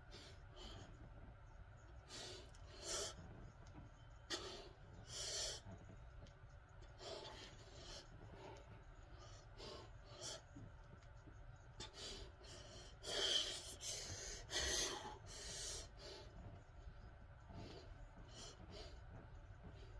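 A man breathing hard through the mouth: faint, irregular puffs of breath, with a louder run of exhales a little past the middle.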